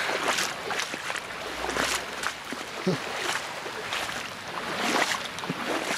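Wellington boots wading through floodwater on a road, with an irregular splash at each step over a steady hiss of water.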